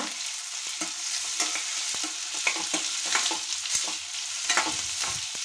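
Sliced onions and green chillies frying in oil in a stainless steel kadai, sizzling steadily while a metal spoon stirs them, scraping and clicking against the pan many times.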